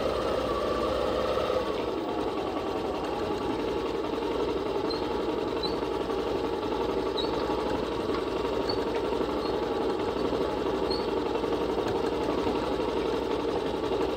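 Motorcycle engine running steadily as the bike rides along, a continuous even hum with no change in revs. A few faint, short high chirps come through around the middle.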